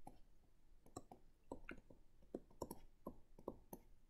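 Faint, irregular clicks and taps of a stylus on a pen tablet as words are handwritten, about three a second.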